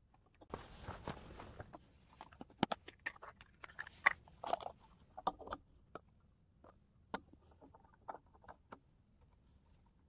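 A short burst of rustling about half a second in, then scattered light clicks and taps, as of small objects being handled.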